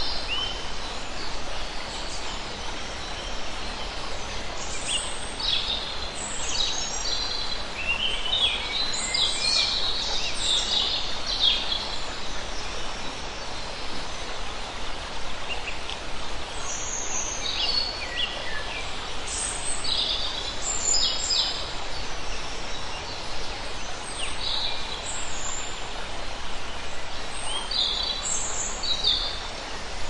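A small rocky stream running steadily, with birds chirping and trilling in short high calls that come in clusters, busiest around ten seconds in and through the second half.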